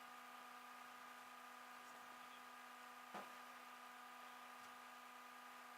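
Near silence: a faint steady hum of room tone, with a single light click about three seconds in.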